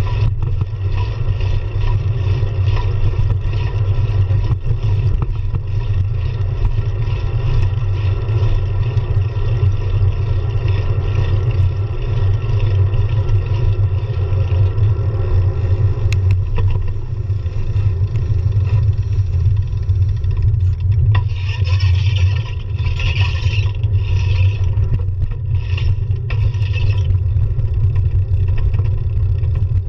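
Steady low rumble of a road bike rolling over city pavement, picked up by a camera fixed to the bike. A few short bursts of higher hiss come about two-thirds of the way through.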